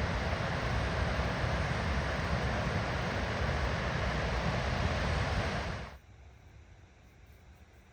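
Steady rushing of a waterfall on the York River, cutting off suddenly about six seconds in to a much quieter background.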